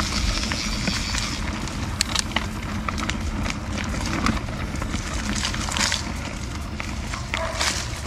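Canyon Spectral CF mountain bike being ridden over a rough dirt trail: a steady rumble of tyres on the ground, broken by frequent sharp knocks and rattles as the bike crosses roots and rocks.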